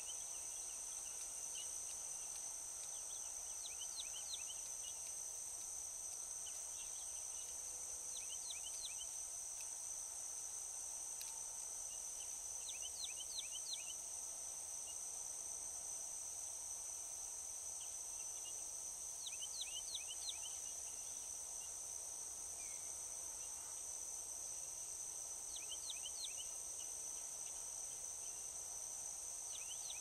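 Insects, likely crickets, chirring in a steady high-pitched drone. A bird sings a short phrase of three to five quick notes every few seconds over it.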